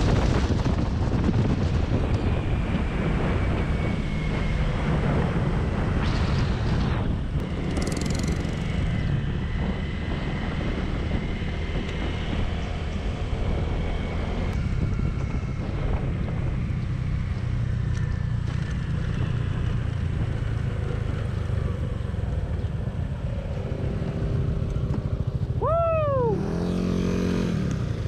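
Motor scooter running at speed, with heavy wind rumble on a helmet-mounted microphone. A short sweeping tone comes near the end.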